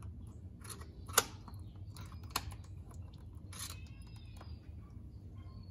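Screwdriver tip clicking and scraping against the fitting in the drain hole of a Mercedes 722.9 transmission pan while prying it loose to let the remaining fluid drain. A few sharp, faint clicks over a low steady hum.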